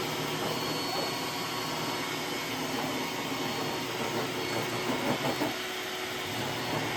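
Roomba S9 robot vacuum running steadily with its suction motor and brushes, with a few louder uneven rattles about four to five seconds in.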